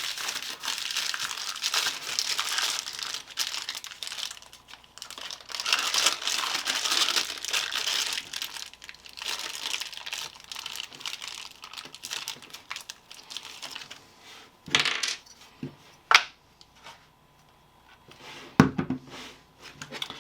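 Packaging being handled and unwrapped, with a steady crinkling and rustling for the first dozen seconds. After that come a few sharp clicks and knocks as parts are set down.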